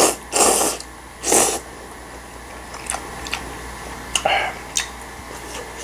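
Jjapaguri noodles slurped up from a bowl in several loud bursts during the first second and a half, then quieter chewing with a few short clicks and smacks.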